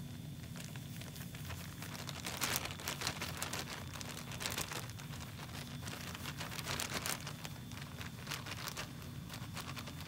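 Plastic zip-top bag crinkling as it is handled, in two bursts of crackling, one from about two seconds in and the other in the second half.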